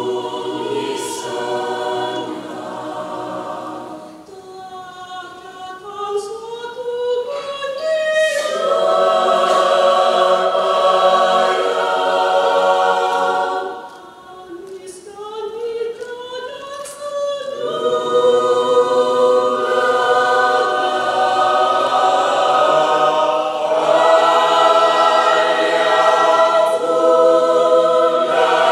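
Mixed adult church choir singing in parts. Two quieter passages, about four seconds in and again near the middle, each climb in pitch before the full choir swells back in.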